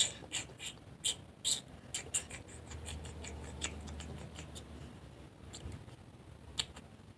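Light clicking taps and rustling from a person moving about while dancing without music, quick and close together for the first couple of seconds, then only now and then.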